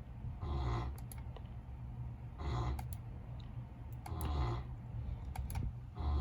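A dog snoring, a loud breath about every two seconds, four times over, with sharp clicks of a computer mouse in between.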